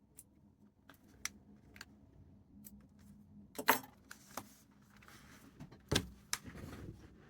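Light clicks and taps of small hard items being handled, with two louder knocks about a third and four-fifths of the way through, and some rustling in between.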